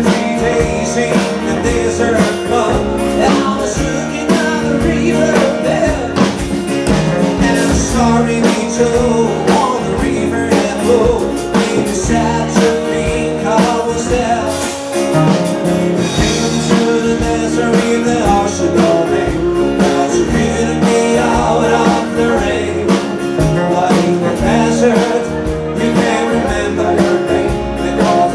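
Live rock band playing, an acoustic guitar together with two electric guitars over a steady beat.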